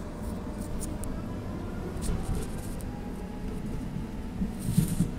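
Tram heard from inside the passenger car: a steady low rumble of the tram running, with scattered faint clicks and a brief louder rattle and hiss near the end.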